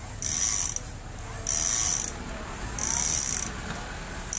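A rhythmic high hissing that comes and goes in regular bursts, each about half a second long, roughly one every second and a quarter, like a small machine running in cycles.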